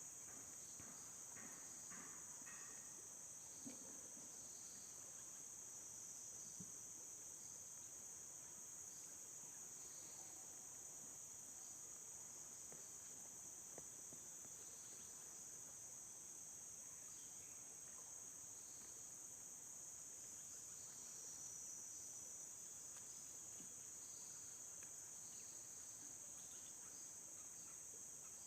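Steady high-pitched chorus of crickets or similar insects, with a fainter chirp repeating about once a second and a few faint knocks near the start.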